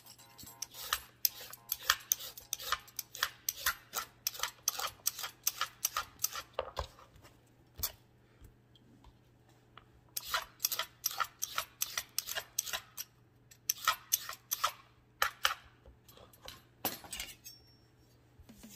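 Y-shaped vegetable peeler scraping down raw carrots in quick strokes, about two or three a second, with a pause of a couple of seconds midway and a few last strokes near the end.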